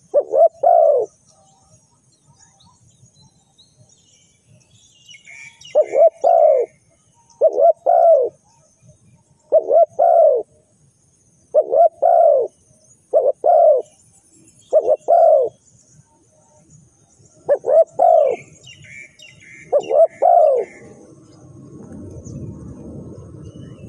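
Spotted dove cooing: repeated short phrases of two or three low, arched coo notes, one phrase every second or two, with faint chirps of small birds behind. A low rushing noise comes up near the end.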